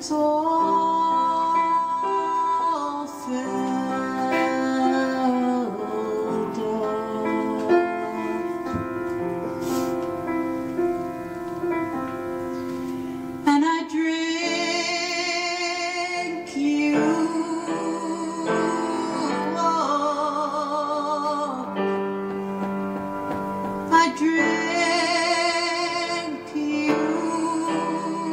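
A woman singing a slow song live with piano accompaniment, holding long notes with a strong vibrato; the fullest, brightest held notes come about halfway through and again near the end.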